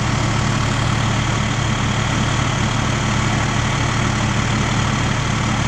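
Fire truck diesel engine idling steadily with a low, even throb.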